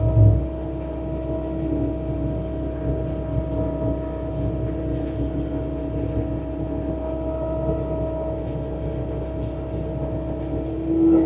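Bobcat T66 track loader running with its snow blower attachment: a steady mechanical drone with several held tones over a low rumble. There is a short low thump right at the start.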